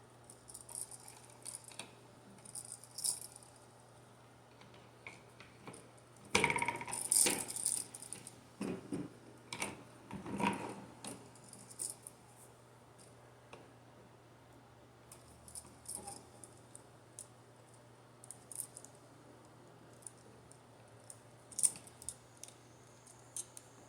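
Small metal clicks and rattles of hand tools and copper wire being handled while wire loops are shaped and hooked onto a receptacle's screw terminals, busiest about a quarter of the way in and for several seconds after, with a few sharp clicks near the end.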